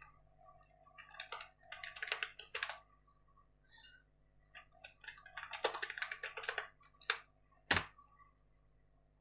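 Typing on a computer keyboard: two runs of quick keystrokes with a short pause between them, then two sharper single key strokes near the end, the last one a heavier thump.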